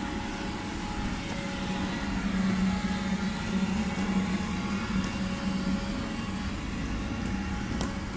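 Street background noise: a steady low hum and rumble, with a single faint click near the end.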